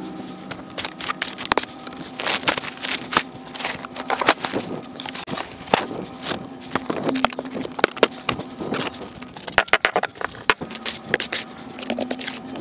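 Long-handled snow brush sweeping and pushing snow off a pickup truck's bed and tailgate: irregular scraping strokes and crunching of snow, with a faint steady low hum underneath.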